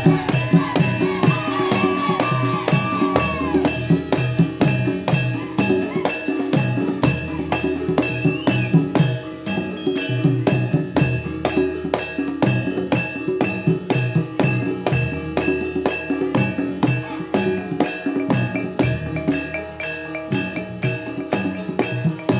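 Jaranan gamelan accompaniment: drums beating a steady, busy rhythm under ringing tuned metal percussion. A wavering melodic line sounds over the first few seconds.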